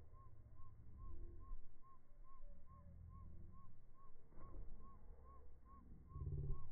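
Playground spring rider squeaking in a steady rhythm as its seat is rocked back and forth, about two to three short high squeaks a second.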